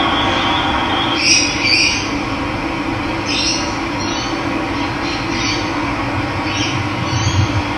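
Steady rush of running water, with short, harsh bird calls repeated about seven times over it.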